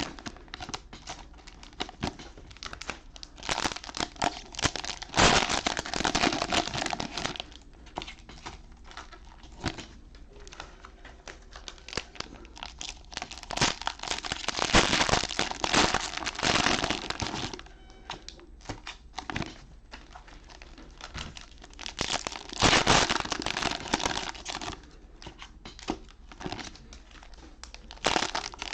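Cellophane wrappers of trading-card cello packs crinkling in several bursts as they are handled, with some tearing.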